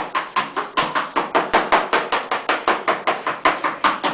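Knife chopping spinach fast, about seven sharp knocks a second.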